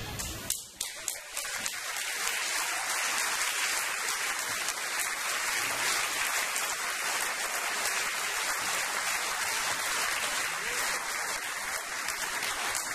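Audience applauding in a hall. The wind band's last chord stops right at the start, and within about a second the clapping builds to a steady, dense applause.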